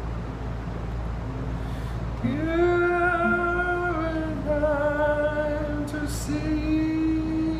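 Acoustic guitar playing, joined about two seconds in by a man singing long held notes over it.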